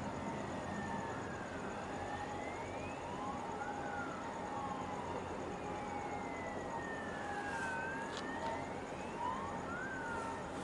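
Sirens wailing, several overlapping tones sliding slowly up and down in pitch over a steady background hiss.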